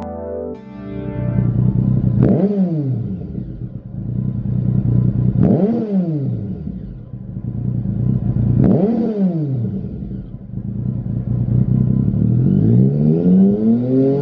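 Triumph Tiger 1050's three-cylinder engine through a Lextek SP8C aftermarket silencer, idling and revved three times, each rev rising sharply and falling straight back to idle. A longer rev starts building near the end.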